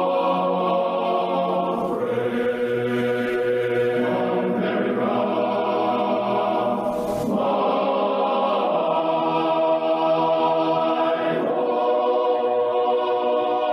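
Slow choral music: a choir of voices holding sustained chords that shift to a new chord every few seconds.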